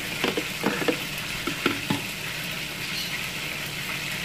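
Chicken sizzling as it sautés in oil in a pan: a steady frying hiss. A few light knocks come in the first two seconds.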